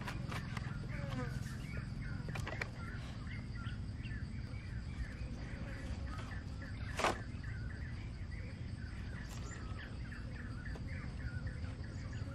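Birds chirping in a continuous run of short calls over a low rumbling background, with one sharp click about seven seconds in.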